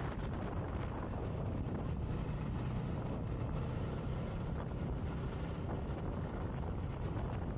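Motobi Evo 200 motorcycle riding at a steady speed: a constant low engine drone mixed with wind rushing over the microphone.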